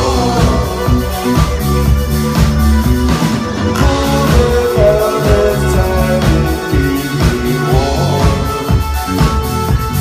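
Live band playing a song, loud and bass-heavy: drums on a steady beat, keyboards and two women singing.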